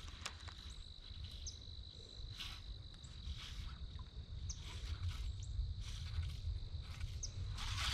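Faint outdoor ambience: low wind rumble on the microphone under a thin, steady high-pitched drone, with scattered small clicks and rustles as hands handle the fishing line and rod.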